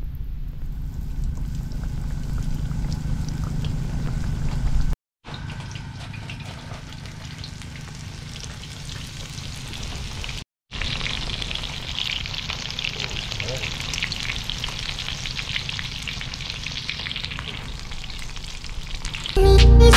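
Flour-dredged walleye fillets sizzling and crackling in hot oil in a cast-iron skillet, over a low rumble. The sound drops out briefly twice, and music comes in near the end.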